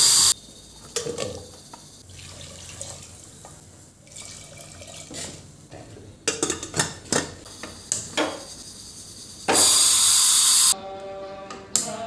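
Tap water running in two loud bursts, a short one at the very start and a longer one of about a second near the end, with knocks and clatter of a steel pressure cooker and its lid being handled between them. Soft music comes in near the end.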